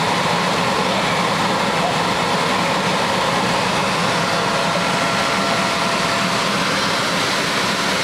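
Electric air blowers that keep the inflatables up, running steadily: a loud, even rushing noise with a low hum under it.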